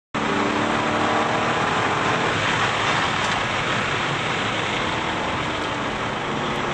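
2002 Corvette Z06's LS6 V8 running at speed, heard from inside the cabin with heavy wind and road noise. The engine's tone holds steady for the first few seconds, then is buried under the rushing noise.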